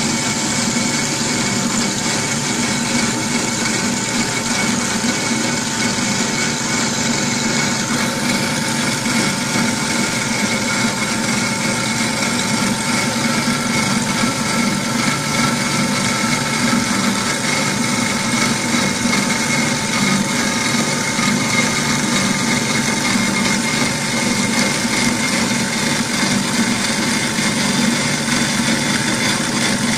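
GS260 metal-cutting band saw running, its blade cutting through a metal bar with coolant flowing over the cut: a steady mechanical whir with a few constant ringing tones. A high hiss in it fades out about eight seconds in.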